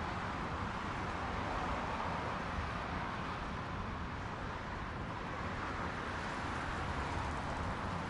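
Road traffic ambience: a steady wash of passing cars that swells and eases slowly, with no single vehicle standing out.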